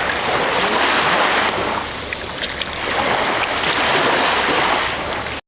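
Recorded ocean surf: waves washing in and out, the rush of water rising and falling in slow swells, cutting off suddenly near the end.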